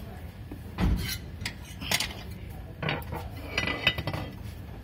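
Metal clinking and knocking as the steel hook of a dough mixer is handled: a few separate knocks about a second apart, then a quick cluster of clinks near the end.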